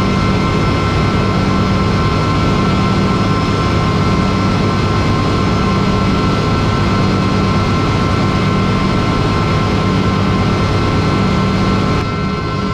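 Combine harvester running steadily under working load: a low engine drone with a constant whine from its threshing and fan drives, as chaffy barley is run back through it.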